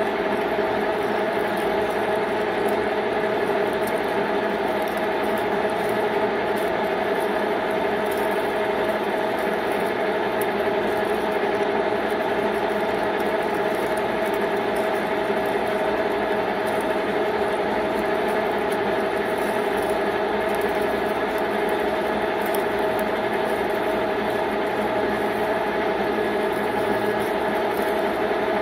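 A 1616 metal lathe running steadily while a large twist drill cuts the centre bore of a spinning backplate blank: a constant machine drone with several steady tones, even in level throughout.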